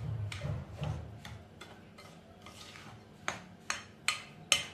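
Hand rubbing oiled fine semolina and cocoa powder together in a glass bowl, a soft gritty rubbing at first. From about three seconds in come four sharp clicks against the glass bowl, roughly two a second, the last the loudest.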